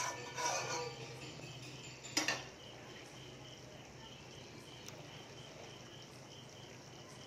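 A metal spatula scrapes and clinks against a metal wok of simmering curry, with one sharp knock about two seconds in. Then a cricket chirps steadily at about three chirps a second over a low hum.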